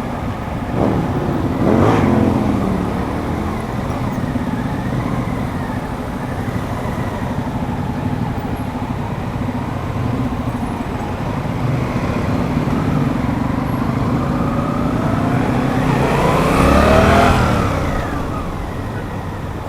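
Suzuki GSX-8S parallel-twin engine running under way, its pitch rising and falling as it revs up and eases off twice, most loudly near the end.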